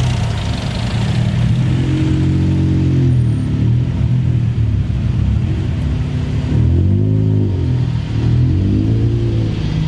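Car engine running with a low rumble and revved several times, its pitch rising and falling in short blips.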